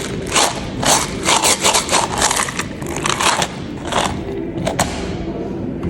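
Hands mixing and kneading soft modelling clay: a quick run of short squishing and scraping bursts that dies away after about five seconds.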